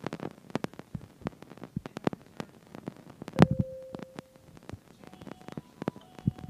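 Irregular sharp clicks and knocks, with one loud knock about halfway followed by a short steady low tone, and faint short tones near the end.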